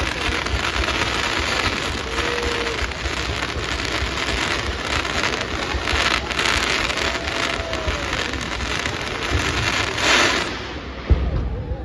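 Fireworks crackling continuously in a dense, rain-like hiss, with a sharp bang near the end.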